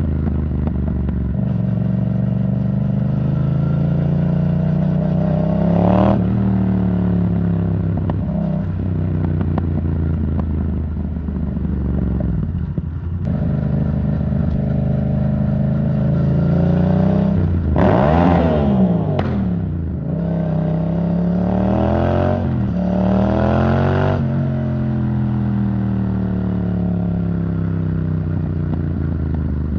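Yamaha MT-07's parallel-twin engine through an Arrow Thunder titanium exhaust, riding along with the revs rising and falling: a rev about six seconds in, the biggest rise and fall around eighteen seconds in, then two more near the end.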